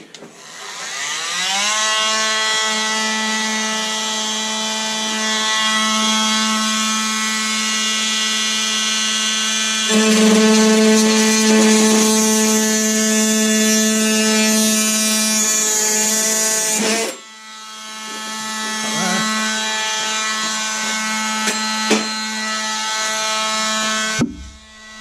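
Oscillating multi-tool cutting the corner piece out of a car door's steel frame: its motor winds up to a steady high buzz, louder for several seconds midway. It stops briefly, winds up again, and cuts out near the end.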